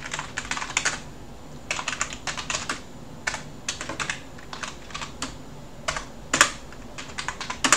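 Typing on a computer keyboard: short runs of keystrokes broken by brief pauses, with one louder keystroke about six and a half seconds in.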